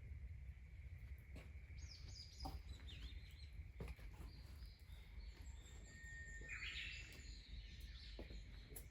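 Birds singing faintly: short high chirps and gliding whistled notes, with a busier burst of song about seven seconds in. Scattered faint clicks and a steady faint hum run underneath.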